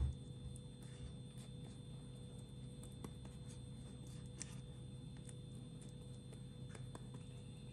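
Quiet room with a steady low hum, a soft thump at the start, and faint light dabs and taps of a silicone pastry brush spreading egg yolk over soft bread dough on a paper-lined baking tray.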